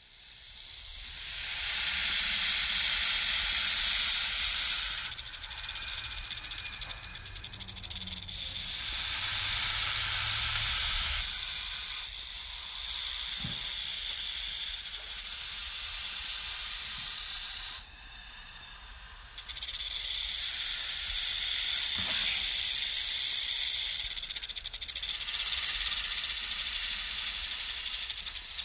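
Snake hissing: a run of long, drawn-out hisses lasting several seconds each, with a short lull about two-thirds of the way through.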